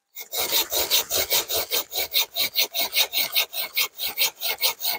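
Hand saw cutting through a branch of a fallen tree: rapid, even back-and-forth scraping strokes, several a second, starting after a brief silence.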